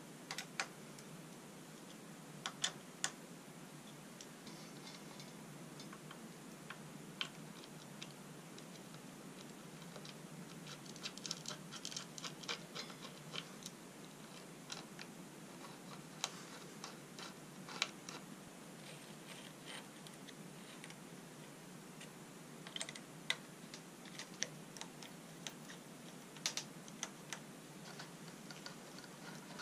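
Faint, irregular small clicks and ticks of hands and tools working on mountain-bike brake and control parts, over a steady low hiss. The clicks come in clusters near the middle and again toward the end.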